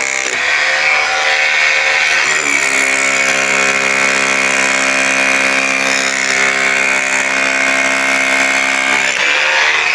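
A power tool's motor running steadily under load, its pitch shifting briefly about two and a half seconds in and again near the end.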